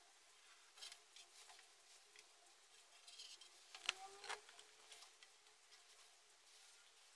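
Near silence with faint handling noise as silicone sealant is laid along a mirror's back: light scattered clicks and rubbing, with one sharper click about four seconds in.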